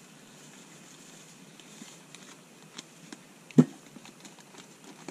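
A few faint clicks of handling over a quiet steady hiss, with one sharp knock about three and a half seconds in.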